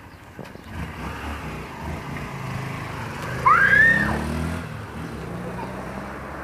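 Small trail motorcycle's engine pulling away and accelerating, its pitch climbing and stepping as it changes gear. About three and a half seconds in, a loud high-pitched squeal rises and falls for about a second over the engine.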